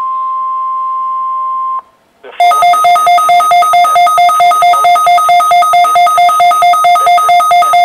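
NOAA Weather Radio's 1050 Hz warning alarm tone, a steady single tone, cuts off about two seconds in. After a brief pause the weather radio receiver's alarm goes off, a loud two-tone electronic beeping at about four beeps a second, set off by the weekly test.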